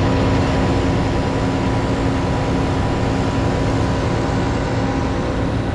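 Combine harvester running steadily during maize harvest: a constant mechanical drone with a steady hum, no change in pitch or rhythm.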